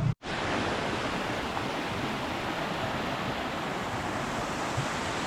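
Steady rush of fast-flowing river water, an even hiss and roar with no change.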